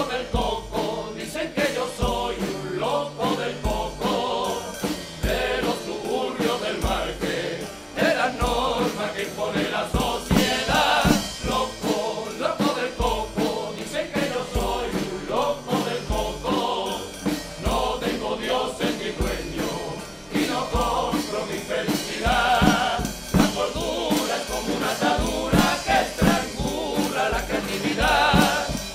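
Carnival comparsa choir of men singing together, with a bass drum beating about once a second beneath the voices.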